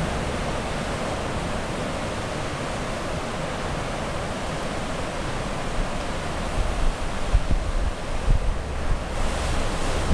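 Ocean surf washing steadily, with wind buffeting the microphone in low, uneven gusts from a little past halfway.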